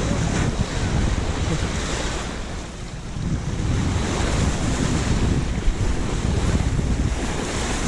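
Wind buffeting the microphone over the rush of sea water, aboard a sailboat under way offshore. The wind eases briefly about three seconds in.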